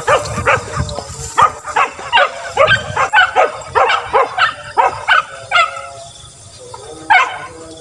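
Hunting beagles barking in quick succession on the chase, about two to three barks a second, then a short lull and one more bark near the end.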